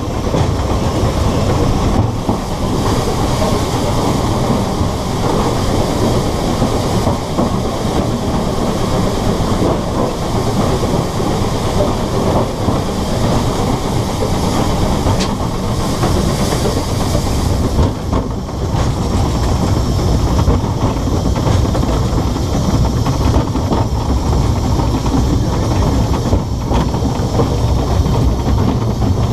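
Narrow-gauge steam locomotive and train running on 2 ft gauge track, a loud steady noise of wheels on rail with some steam hiss, partly inside a stone tunnel.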